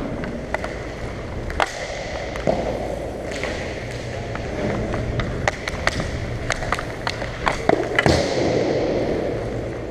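Hockey play on a plastic rink floor: a steady rolling and scraping of players moving, broken by many sharp clacks of sticks hitting the ball or puck and each other. The clacks come thickest in the second half, with a burst of scraping about eight seconds in.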